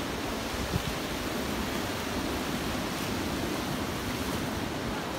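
Sea surf breaking and washing onto a sandy beach, a steady rush of waves, with a short low thump from wind on the microphone about a second in.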